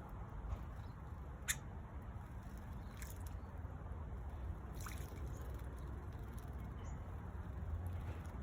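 Faint splashing and dripping water in a bird bath over a steady low rumble, with a few short sharp sounds, the clearest about a second and a half in.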